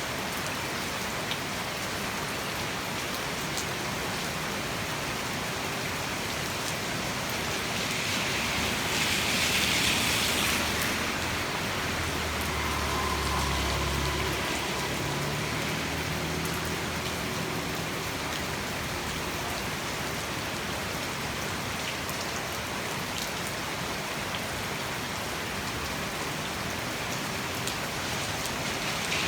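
Heavy tropical rain pouring steadily, with a brief surge of louder hiss about eight seconds in. A low rumble rises for a few seconds around the middle.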